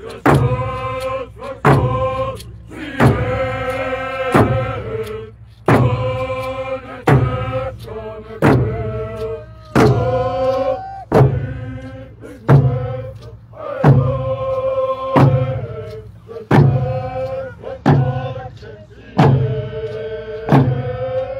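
A group of voices singing a chant together over a drum beaten by several drummers. A loud stroke falls about every second and a half, with lighter strokes between.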